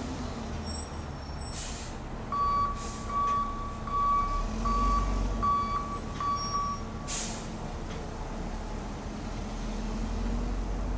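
Front loader garbage truck's engine running as it backs up, its backup alarm beeping six times at a steady pace. Short air-brake hisses come just before the beeps start and again as they stop.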